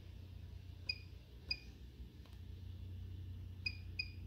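BK Precision bench power supply's front-panel keys beeping as they are pressed to raise the current limit: four short, high beeps, a pair about a second apart and another quick pair near the end.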